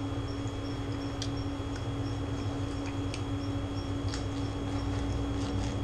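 Steel knife and fork cutting steak on a ceramic plate: a few sharp, scattered clicks of metal on the plate over a steady air-conditioner hum.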